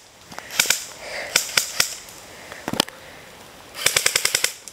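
Airsoft guns firing in a forest skirmish: scattered single shots through the first few seconds, then a rapid full-auto burst of about a dozen shots a second near the end.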